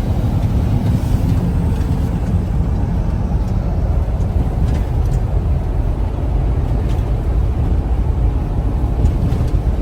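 Steady low rumble of road and wind noise inside a moving vehicle on the highway, with a few faint clicks.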